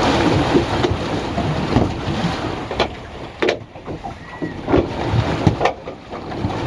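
Small ride boat moving on water, with wind buffeting the microphone and a steady rush of water and noise. Partway through, the noise drops and several sharp knocks follow.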